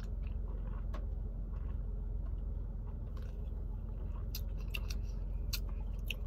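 A person drinking sparkling water from an aluminium can: sips and swallows with a scattering of small clicks, mostly in the second half, over a steady low hum.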